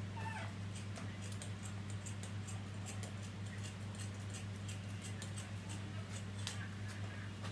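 A baby monkey gives a short squeaky call that falls in pitch just after the start, over a steady low hum and scattered light ticks and taps.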